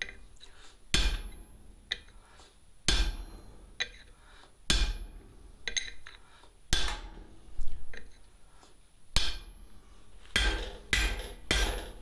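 Hand hammer striking a ball punch set into a hot steel sucker-rod billet on an anvil, punching the dome of a bottom rivet set. Single metal blows about every two seconds, coming quicker, three close together, near the end.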